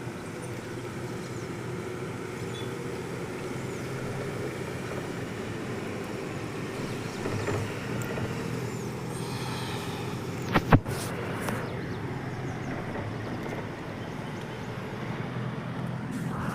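A motor running steadily with a low hum, with two sharp clicks in quick succession about eleven seconds in.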